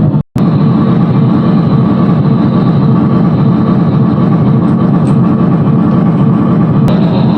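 Steady, loud, low rumble of a heavy vehicle running. It breaks off for a moment just under half a second in at an edit, and its tone changes at another cut near the end.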